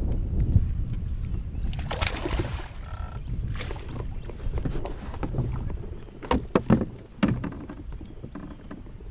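Steady low wind rumble on the microphone aboard a fishing boat, with rustling and a cluster of sharp knocks about six to seven seconds in.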